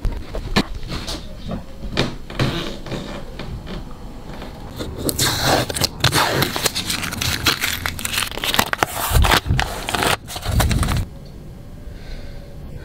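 Blue masking tape being peeled off windshield glass: a loud crackling, tearing noise from about five seconds in that stops abruptly about two seconds before the end. Before it come scattered small clicks and rustles of handling the tape.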